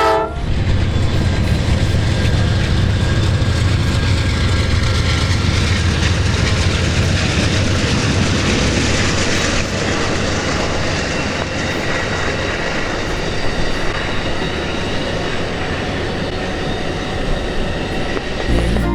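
A train passing: a steady, loud rumble of wheels on rail that eases slightly in the second half.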